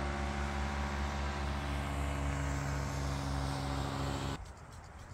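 Paramotor (powered paraglider) engine running with a steady buzzing drone; it stops abruptly about four seconds in.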